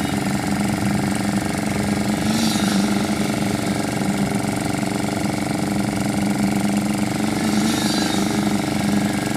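Engine-driven construction machinery running steadily at concrete casting, a constant even drone.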